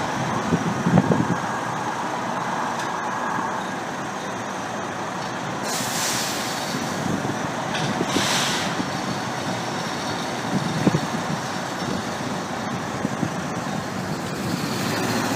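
Fire truck's diesel engine running at low speed, with two short sharp hisses of its air brakes, about six and eight seconds in.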